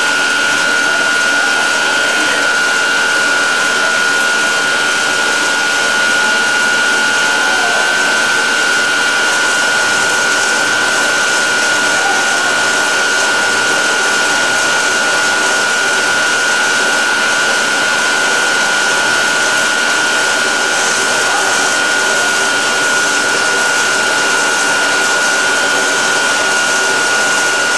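Large circular saw blade spinning freely on its arbor at supercritical speed, where it flutters: a steady whirring rush with a strong high whine held at one pitch.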